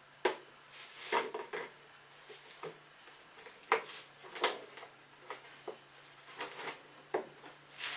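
Scattered sharp knocks, clicks and rustles of plastic feed buckets, lids and scoops being handled while horse feed and supplements are measured out. About a dozen irregular knocks, with no rhythm.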